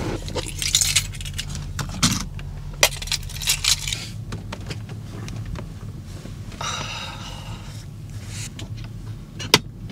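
Clinks, rattles and knocks of things being handled and moved around inside a camper van, over a low steady hum.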